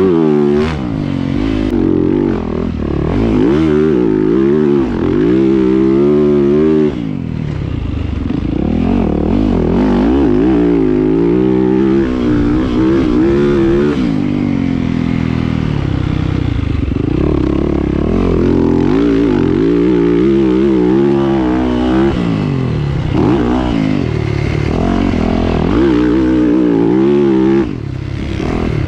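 2022 Yamaha YZ450F's single-cylinder four-stroke engine under hard riding, its pitch rising and falling again and again as the throttle is opened and closed. There are sharp drops off the throttle about seven seconds in and near the end.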